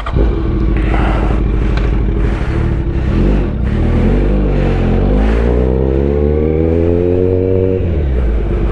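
Motorcycle engine pulling away and accelerating. The revs climb steadily for a few seconds, then drop sharply at a gear change near the end and carry on at a steady pace.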